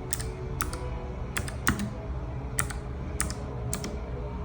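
Clicky Gateron Blue low-profile switches on a Nuphy AIR60 mechanical keyboard, keys pressed one at a time at an uneven pace, about ten sharp clicks, over a low steady hum.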